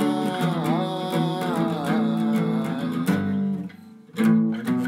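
Steel-string acoustic guitar being strummed while a man sings a long wordless held note. Near the end the music drops out for about half a second, then the strumming comes back in loudly.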